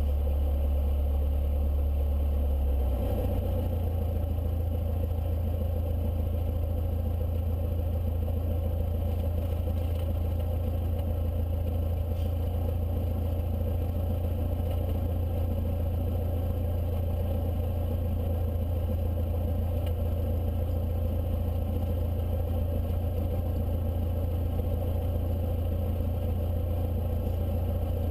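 Light aircraft's piston engine running at low power while taxiing, heard from inside the cabin as a steady low drone; its pitch steps up slightly about three seconds in as a little power is added, then holds steady.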